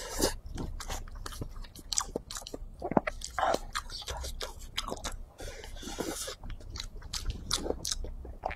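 Close-up sounds of a person chewing a mouthful of braised beef brisket, potatoes and rice, with many short sharp mouth clicks.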